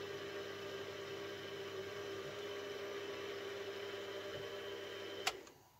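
Mini mill's spindle motor running steadily while a small 2.6 mm drill bit feeds slowly into a metal slide bar. About five seconds in there is a click and the motor sound cuts off.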